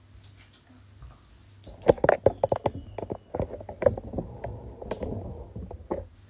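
Handling noise close to the microphone: a quick string of sharp knocks, taps and rubbing for about four seconds, starting about two seconds in, as the phone that is filming is touched and shifted.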